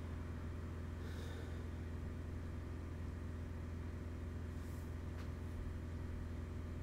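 Steady low electrical hum under a faint background hiss, with two soft breaths about a second in and near the five-second mark.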